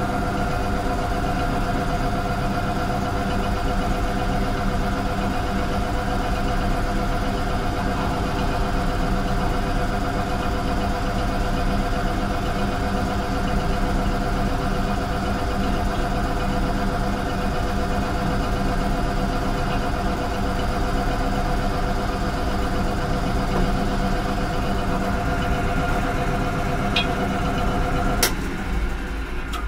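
Old English pillar drill running at high speed during centre drilling: a steady machine whine made of several held tones. Near the end it cuts off with a sharp click and the sound dies away.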